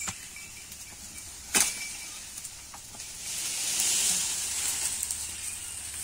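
Leafy branches rustling as goats browse on them, with a sharp crack about a second and a half in and a swell of louder rustling from about three seconds in.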